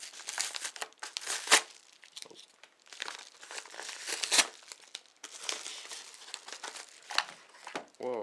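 White paper mailing envelope torn open and crinkled by hand: irregular crackling and rustling with a few sharp, louder rips.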